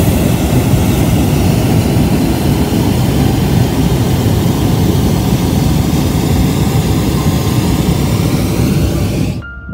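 Hot air balloon's propane burner firing: a loud, steady rushing noise that cuts off suddenly near the end.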